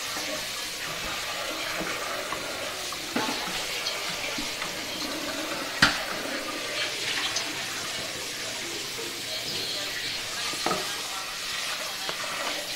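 Chicken curry sizzling in a pot while a wooden spoon stirs it, a steady hiss with a few knocks of the spoon against the pot, the sharpest about six seconds in.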